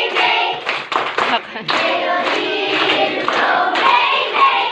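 A class of schoolchildren singing together in chorus and clapping their hands along.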